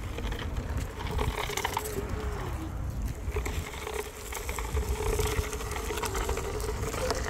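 Foam bodyboard dragged along by its leash over rough paving and dry grass: a continuous scraping rattle. Wind buffets the microphone underneath.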